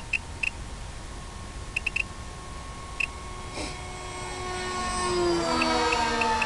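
Electric motor and propeller of a radio-control plane whining as it flies past. It grows louder from about four seconds in and drops in pitch as it passes. A few short high beeps sound in the first three seconds.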